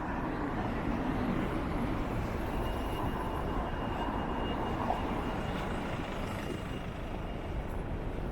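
Street traffic noise with wind on the microphone: a steady rush of a vehicle going by and a low buffeting rumble. A faint thin high whine sounds through the middle.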